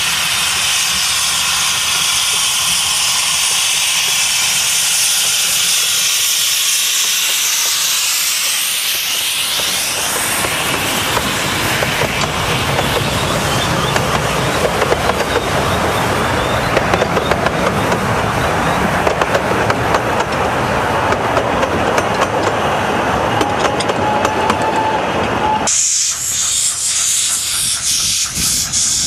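Narrow-gauge steam locomotive passing close with a loud hiss of steam, followed by its coaches rattling over the rails with rapid wheel clicks. About three seconds before the end the sound changes abruptly to a thinner hiss of steam.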